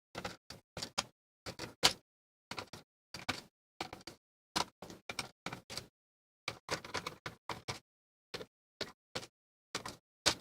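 A hand screwdriver backing small screws out of a circuit board mounted in a plastic keyboard case: a run of irregular short clicks and taps.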